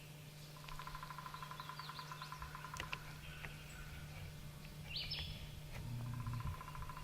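Faint birdsong: a long, rapid trill that stops about two-thirds of the way through and starts again near the end, with a few short high chirps over it. A steady low hum runs underneath.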